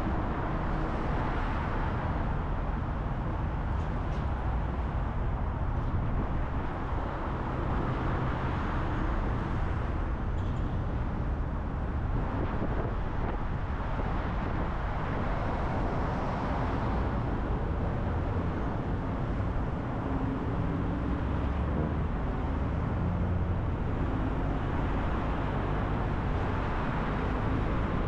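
Steady road noise of a car cruising at highway speed: tyre and wind rush over a low engine hum.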